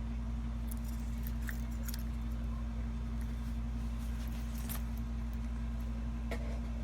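Steady low hum with scattered light clicks and small rattles on top.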